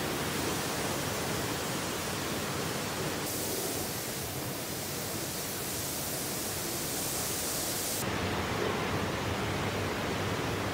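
Steady rushing hiss of air in a robotic car paint booth, with no distinct mechanical rhythm; its tone shifts abruptly twice, once becoming brighter and hissier and then falling back to a duller rush.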